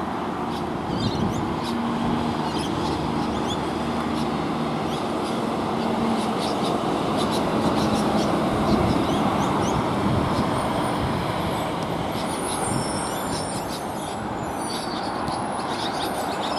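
Semi-trailer truck driving past on a road, its diesel engine and tyre noise growing to a peak about halfway through as it passes, then fading as it moves away, over steady background traffic.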